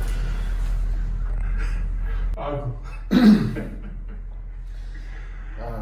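A person's voice making two short vocal sounds a little past the middle, the second louder, over a steady low hum that drops away about two seconds in.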